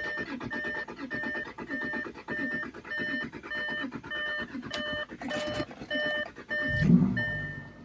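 The 3.0L V6 TDI diesel of a 2014 Audi Q7 cranks over for several seconds on its first start after an oil cooler replacement, while a dashboard warning chime beeps steadily about twice a second. About seven seconds in the engine catches with a loud burst and drops to a steady idle.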